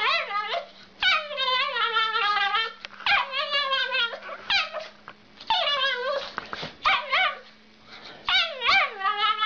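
Small dog giving a string of drawn-out, wavering whining howls, about seven cries of a second or so each with short breaks between, the pitch sliding up and down within each one.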